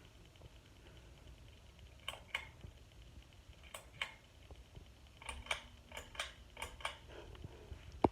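Harbor Breeze Cheshire ceiling fan running with a low steady hum, over which come irregular light clicks: a few in pairs, then a quick run of them, and one sharper click near the end.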